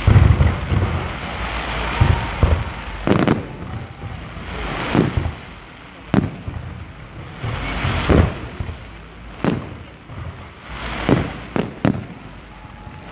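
Aerial fireworks going off: about a dozen sharp bangs of bursting shells, spaced irregularly a second or two apart.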